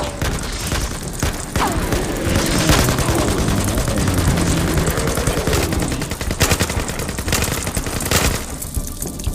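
Rapid gunfire from automatic weapons, a dense string of shots that stops abruptly about eight seconds in.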